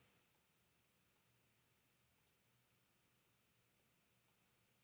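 Near silence broken by about five faint, sharp clicks roughly a second apart: a computer mouse being clicked while adjusting a selection on screen.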